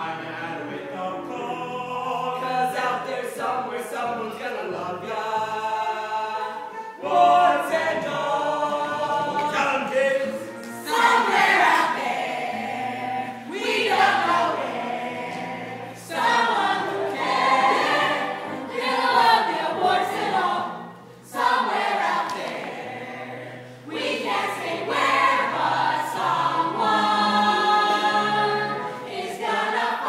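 A chorus of voices singing a show tune in phrases over backing music.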